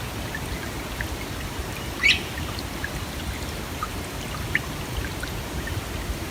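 Stream water flowing and trickling, a steady rush with scattered small plinks and drips. There is one brief louder sound about two seconds in.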